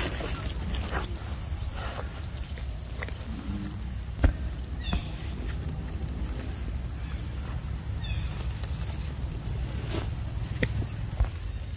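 Forest ambience: a steady high insect drone over a constant low rumble, with scattered light knocks and a sharp click about four seconds in, and a couple of brief high chirps.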